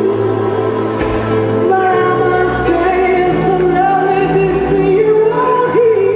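A woman singing with a live jazz-pop band backing her, the voice holding long notes over the band.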